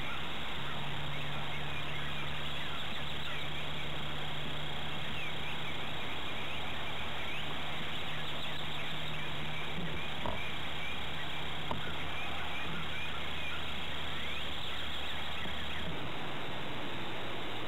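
Outdoor ambience: a steady hiss and low hum, with scattered short bird chirps. The hum cuts off near the end.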